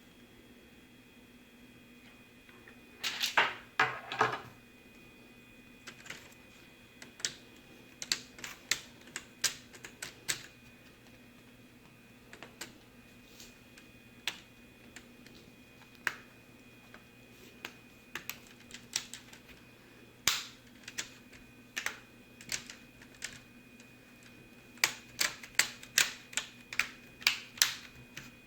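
Irregular sharp plastic clicks and taps from hands working on a laptop's plastic case during reassembly, some in quick clusters of several clicks.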